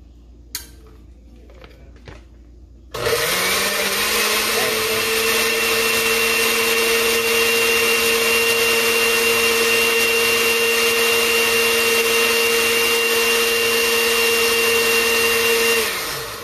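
Countertop blender switched on about three seconds in, running steadily at one speed as it purées boiled broccoli in its broth, then winding down and stopping near the end. A couple of light clicks come before it starts.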